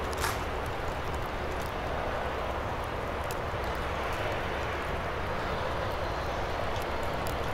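Steady rumble of distant engine noise, slowly swelling and easing, with a few faint ticks.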